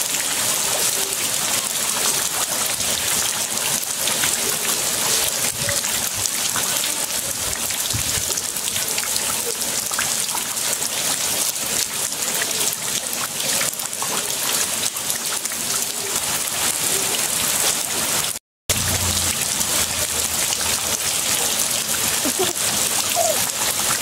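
Heavy rain falling on a concrete slab and into standing muddy floodwater: a steady, dense hiss of drops and splashes. The sound cuts out for a split second about three-quarters of the way through.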